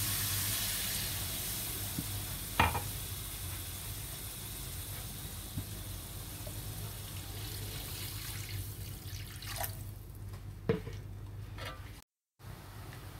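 Spice paste frying in a wok, its sizzle fading as liquid and then water are poured in. Two sharp clinks sound over it, the louder about two and a half seconds in and the other near the end.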